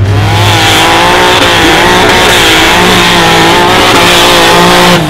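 Off-road buggy engine revving hard and loud under load as the buggy claws over a pile of tyres, its pitch rising and falling with the throttle; the sound cuts off suddenly near the end.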